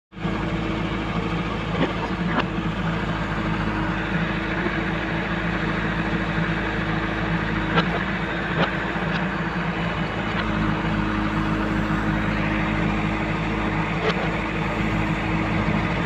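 JCB 3DX backhoe loader's diesel engine running steadily while the backhoe arm digs and dumps soil, with a few short sharp knocks from the working bucket and boom.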